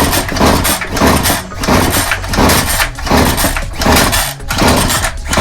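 Murray push lawn mower's small four-stroke engine being pull-started over and over, about one yank of the recoil cord a second, cranking without catching.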